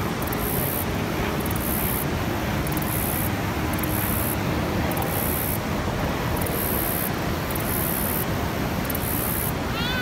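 Steady, unbroken roar of a waterfall: the dense rush of falling water at Niagara Falls.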